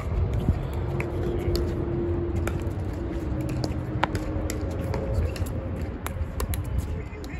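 Wind buffeting the microphone as a steady low rumble, with scattered sharp pops of pickleball paddles striking the ball.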